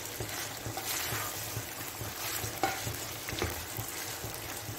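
Mutton pieces sizzling as they fry in oil in a non-stick kadai, stirred briskly with a spatula that scrapes and taps against the pan many times at an irregular pace.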